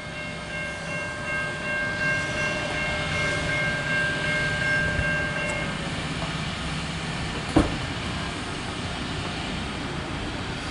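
Approaching MARC commuter train: its horn sounds a steady chord for about six seconds, then the rumble of the train on the rails carries on and slowly builds. A single sharp click comes about seven and a half seconds in.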